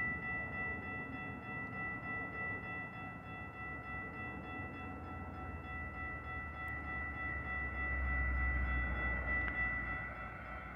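Railroad crossing bells ringing steadily while a Metra commuter train approaches, its low rumble building from about halfway in and loudest near the end.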